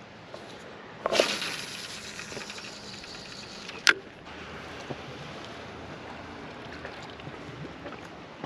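A fishing cast: a sudden swish of rod and line that fades over about a second, then a short sharp plop or click roughly three seconds later as the lure lands. Wind and lapping water run steadily underneath.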